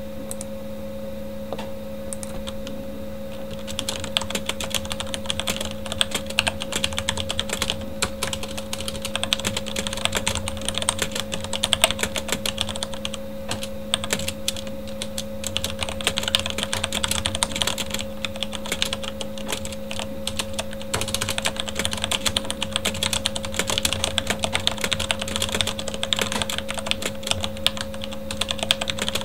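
Typing on a Corsair K70 mechanical keyboard with Cherry MX Red linear switches: a few scattered keystrokes, then from about four seconds in a fast, continuous clatter of keys. A steady computer-fan hum runs underneath.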